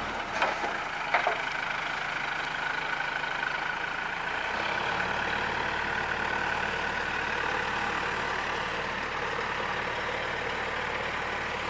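Heavy earth-moving machine's diesel engine running steadily, with two sharp knocks about half a second and a second in.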